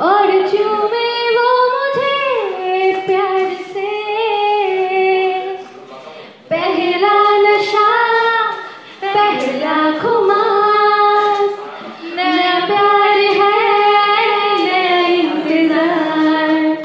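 A female voice sings a slow melody in long held, gliding notes, with short breaks about six, nine and twelve seconds in.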